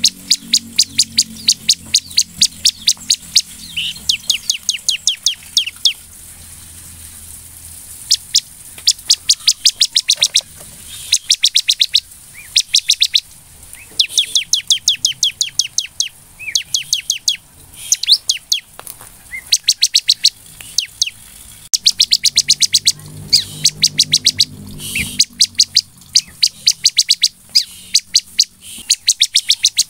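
Bar-winged prinia (ciblek) singing persistently: quick runs of sharp, high chipping notes, each run lasting a second or two, with short pauses between runs.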